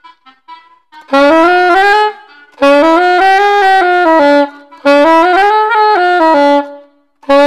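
Selmer Mark VI soprano saxophone being play-tested after cleaning and repair: a short run of notes stepping up and back down, played over and over with short breaths between. There are a few faint notes in the first second, and a fourth run starts near the end.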